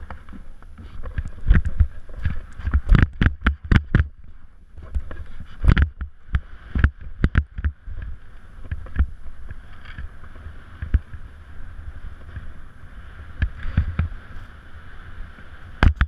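Skis sliding and scraping over packed snow on a downhill run, with frequent sharp knocks and clatters as they ride over bumps. A low rumble of wind on the microphone runs underneath.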